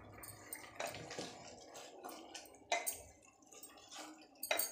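Wooden spoon stirring chunks of potato and beans in a pressure cooker pot: a few faint, irregular knocks and scrapes of the spoon against the pot.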